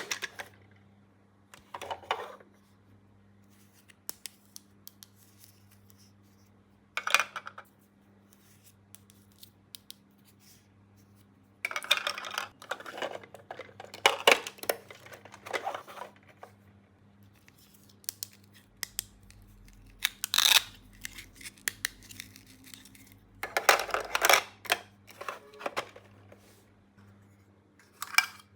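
Toy packaging being opened and handled: short separate bursts of cutting, tearing and rustling, with scattered small sharp clicks, over a faint steady hum.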